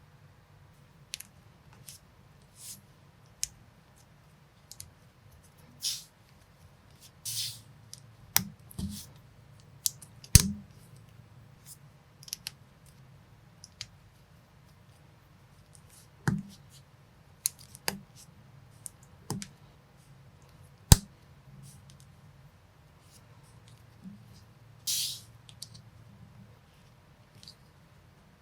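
Plastic building bricks and minifigure parts being handled and pressed together: irregular sharp clicks and snaps mixed with short scraping rustles, the loudest snaps about ten and twenty-one seconds in.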